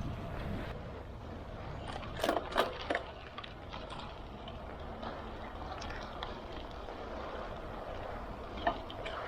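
Road bike riding, heard through a bike-mounted camera: steady wind and tyre rumble. Three or four sharp knocks come close together a little over two seconds in, and one more comes near the end.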